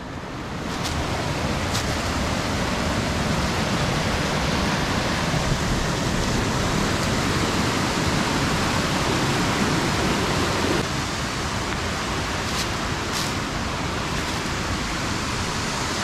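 Waterfall pouring steadily: a dense, even rush of falling water, a little quieter after about eleven seconds.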